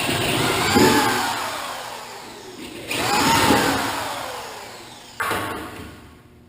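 Power drill running in three bursts, each spinning up quickly and then slowly dropping in pitch as it winds down or bogs, while drilling out pilot holes in a sheet-metal cab corner to size.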